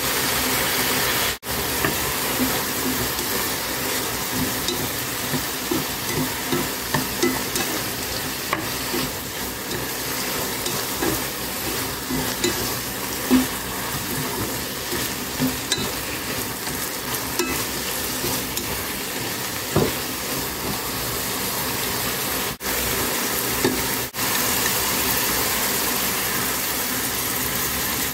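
Sliced eggplant sizzling in a hot pot as it is stir-fried in its sauce, with small scrapes and taps of a wooden spatula turning it. The sizzle breaks off for an instant a few times.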